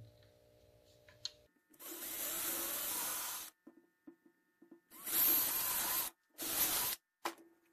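Cordless drill boring holes through clamped white plastic boards, run in three bursts: a long one about two seconds in, then two shorter ones around five and six and a half seconds.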